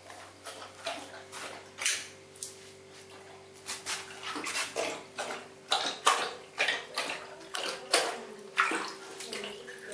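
Siberian Husky puppy lapping and splashing water in a plastic bucket, an irregular run of short wet slaps that grows busier after a few seconds.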